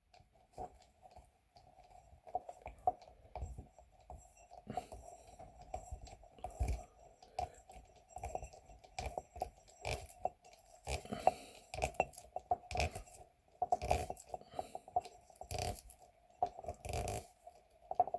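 Hands twisting a coiled metal spring sleeve back up a rubber tyre inflator hose onto a new quick connector: irregular clicks, scrapes and rubbing of the spring on the hose, with a faint steady hum behind.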